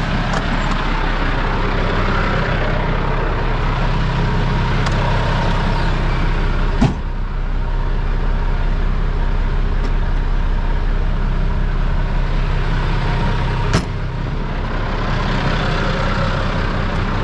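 Fire truck engine idling steadily. Two sharp knocks about seven seconds apart, one near the middle and one toward the end, as the cab doors are shut.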